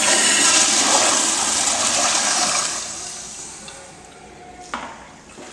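Crane toilet flushing: a loud rush of water that dies away after about three seconds into a quieter refill hiss. A short knock sounds near the end.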